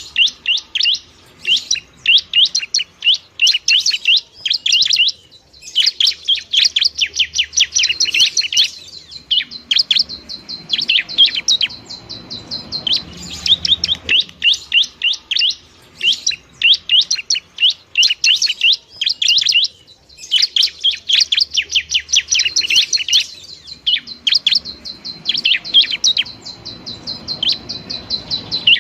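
Bar-winged prinia (ciblek) calling loudly: fast chattering runs of sharp, high, down-slurred notes in bursts a few seconds long, separated by short pauses.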